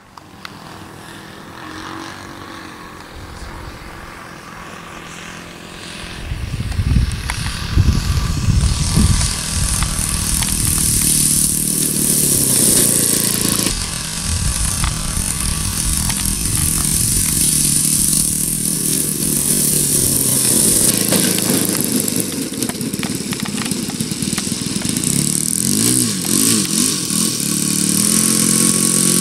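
Piston engines of large radio-controlled model warplanes at landing throttle. One runs quietly as a model taxis on grass; from about six seconds in, a louder engine with a steady high hiss comes in as a second model touches down and rolls out.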